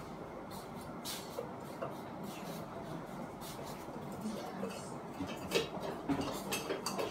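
Scattered light clicks and taps from the parts of a ceiling fan's light kit being fitted by hand, coming more often and a little louder near the end.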